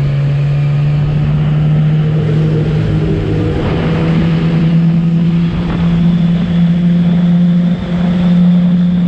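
Motorcycle engine running at steady revs, its note holding level, with a slight rise in pitch about four seconds in and a brief drop in loudness near the end.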